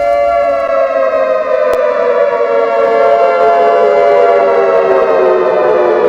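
A loud siren-like wail of two close tones sounding together, gliding slowly and steadily down in pitch.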